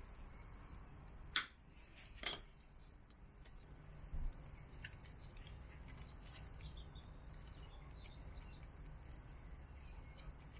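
Two sharp clicks about a second apart, then a dull knock and a few faint ticks, from hand tools and parts being handled during work on a motorcycle swing arm, over a faint low hum.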